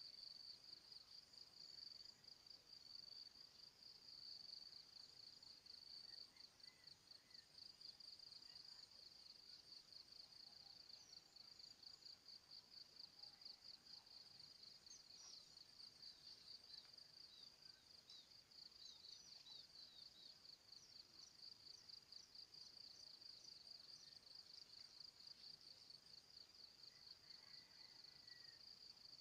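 Faint high-pitched insect trill, made of rapid, even pulses. A few short bird chirps come in over it midway.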